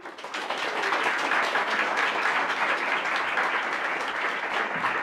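An audience applauding to welcome a speaker, many hands clapping steadily and thinning out near the end.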